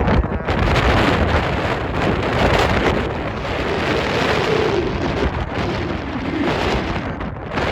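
Strong wind gusting against the microphone: a dense, loud rushing noise with a heavy low rumble.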